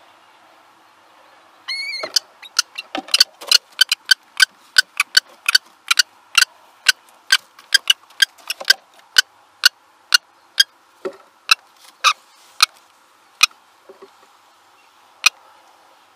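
Female kestrel moving about in a wooden nest box with prey: a brief high call about two seconds in, then a long run of sharp clicks and taps, roughly two a second, thinning out near the end.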